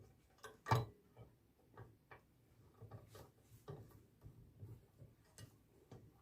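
Faint, scattered clicks and light knocks from handling the dental thermoforming machine's clamp frame, with one sharper knock less than a second in.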